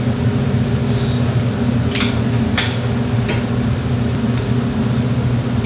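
A steady machine hum with a few light clicks about two and three seconds in.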